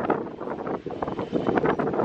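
Wind buffeting the camera's microphone in uneven gusts.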